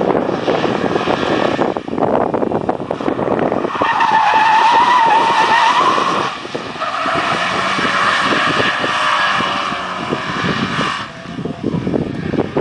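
Porsche 944 S2 drifting, its tyres squealing. The squeal is loudest and wavers in pitch from about four seconds in, then carries on rougher until near the end, while the engine runs under power.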